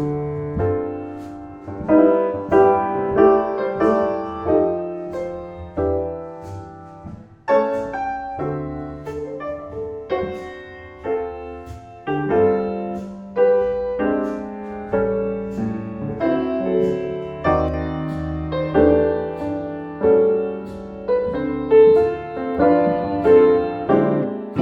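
Piano music: a piano playing a slow passage of chords, each struck and left to ring and fade before the next.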